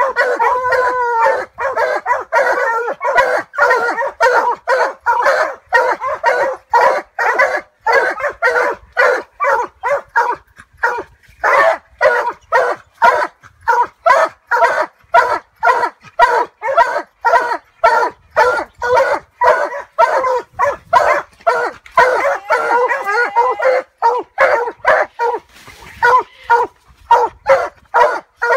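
Walker coonhounds barking treed at the foot of a tree holding a raccoon: a steady, rapid run of barks, two or three a second, from more than one dog, with a brief pause about eleven seconds in.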